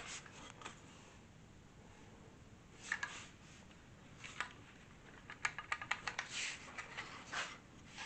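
Light clicks and taps from handling a cordless stick vacuum's telescopic aluminium suction tube, with a quick run of closely spaced clicks about five and a half seconds in, over quiet room tone.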